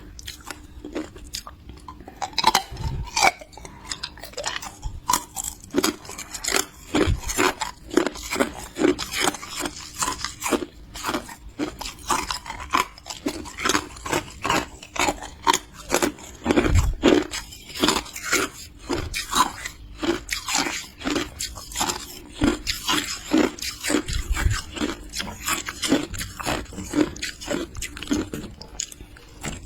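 Hard clear ice being bitten and chewed close to the microphone: a steady run of sharp crunches, about two to three a second.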